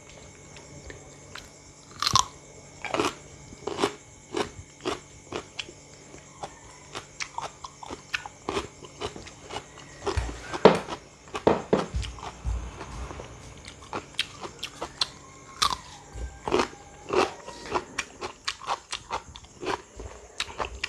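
A person biting and chewing crisp raw produce, watermelon or cucumber flesh: a run of sharp, wet crunches, one or two a second, with a louder bite about two seconds in and a heavier stretch of chewing around the middle.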